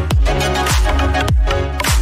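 Background music with a steady beat: a deep kick drum about every half second under held chords.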